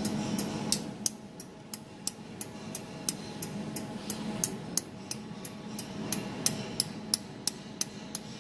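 Desktop jewelry laser welding machine firing repeated laser pulses, each a sharp click, about three a second in an even rhythm, over the machine's steady hum.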